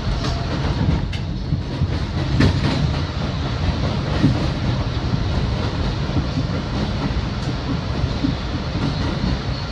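Bombardier R62A subway car running along the track, heard from inside the car: a steady low rumble with a few sharp clacks of the wheels over rail joints.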